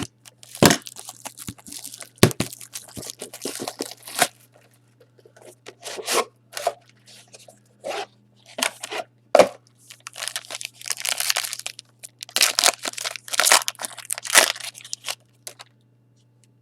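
Trading-card boxes and packs being torn open and handled: bursts of tearing and crinkling with sharp snaps, over a faint steady low hum.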